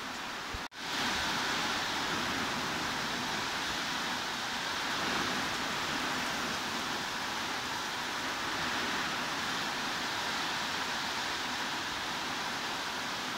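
Steady heavy rain hiss, an even wash of noise with no individual drops standing out. It cuts out for an instant a little under a second in and comes straight back slightly louder.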